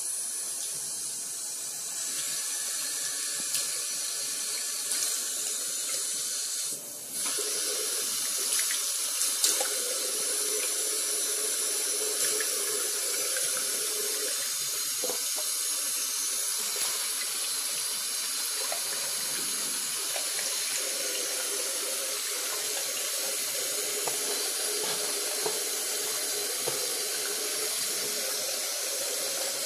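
Tap water running steadily into a basin and splashing over hands and hedgehogs held under the stream, with one brief dip about seven seconds in.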